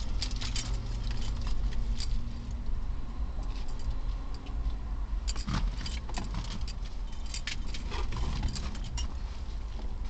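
Clinking, rattling and rustling of things being handled inside a car as someone reaches in and lifts out a bag, in scattered bursts over a steady low hum.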